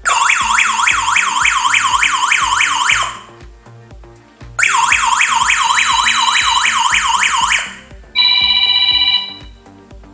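The home alarm system's electronic siren, set off by the motion detector tripping while the system is armed. It warbles fast, about four rising sweeps a second, in two bursts of about three seconds with a short pause between. A short steady beep follows about eight seconds in.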